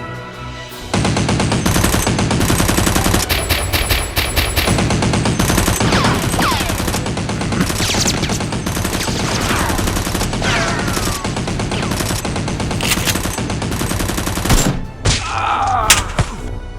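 Rapid gunfire sound effects: dense machine-gun bursts starting about a second in and running almost without a break, with falling whistling tones through the middle. They ease off near the end.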